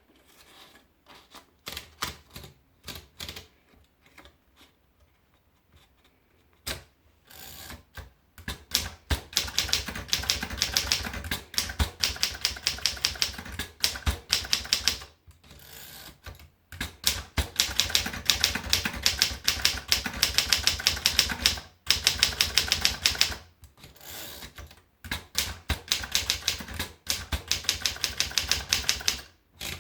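Mercedes Prima typewriter being typed on: fast runs of key strikes, several a second, broken by short pauses, after a few scattered clicks in the first seconds.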